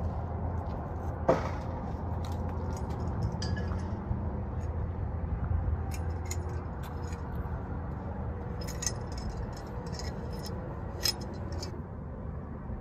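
Small clicks, clinks and light scrapes of camping gear being handled, including the control knobs of a camp stove, over a steady low rumble, with a sharp click about a second in.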